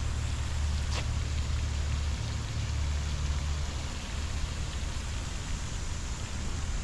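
Steady splashing hiss of pond fountains spraying water, with wind rumbling on the microphone. A single sharp click about a second in.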